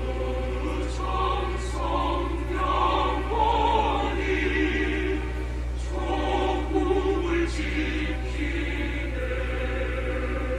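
Background music: a choir singing slow choral music in long held chords over a steady low drone.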